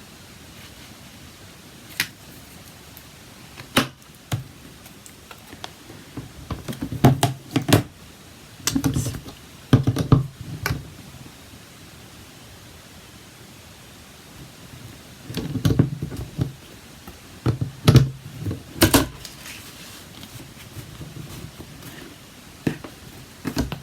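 A Stamparatus stamping tool in use: scattered clicks and knocks, with short runs of quick tapping, as a rubber stamp is inked and pressed onto card.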